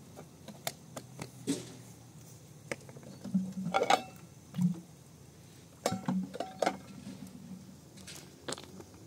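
Metal dishes and utensils being handled: scattered knocks and clinks, a few ringing briefly, with the busiest clattering about four seconds in and again around six seconds.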